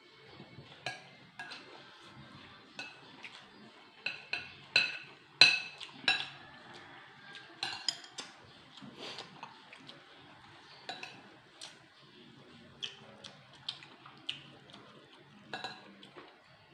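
Cutlery clinking and scraping against plates during a meal: irregular sharp clinks, a cluster of the loudest a little before the middle.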